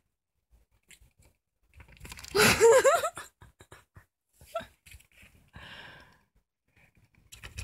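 Orange female house cat giving one loud, wavering cry about two seconds in, lasting about a second, followed by a few fainter short sounds. It is an angry cry, as the owner reads her mood.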